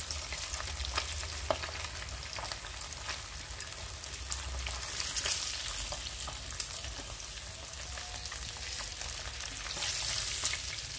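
Whole Indian mackerel deep-frying in hot oil, the oil sizzling steadily with scattered small pops and clicks as the golden-brown fish are moved and lifted with a spatula.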